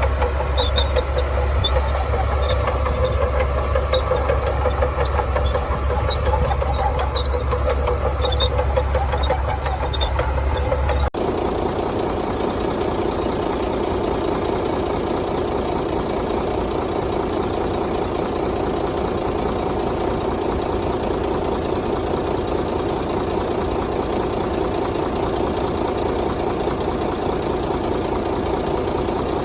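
Heavy diesel engine of earth-moving machinery, most likely the Shantui bulldozer, running steadily under work. About eleven seconds in the sound changes abruptly to a smoother, steadier running, with less low rumble and without the faint light clicks heard before.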